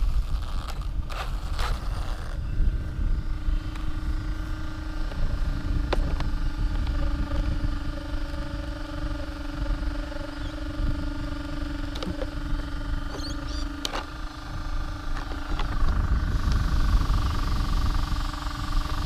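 Wind rumbling on the microphone, with a steady electric-sounding hum joining a couple of seconds in and a few sharp clicks past the middle.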